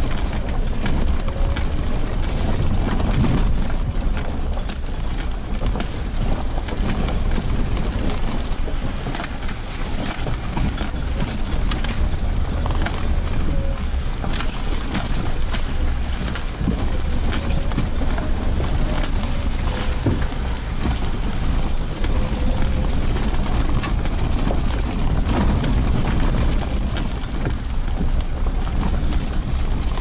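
Suzuki Jimny Sierra driving slowly on a bumpy dirt forest road: a steady low engine and tyre rumble with frequent knocks and rattles from the rough surface.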